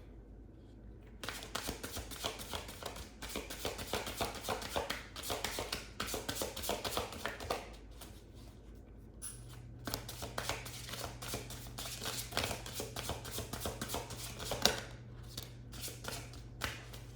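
A deck of oracle cards shuffled by hand: a rapid run of card flicks for about six seconds, a short pause, then shuffling again for about seven seconds.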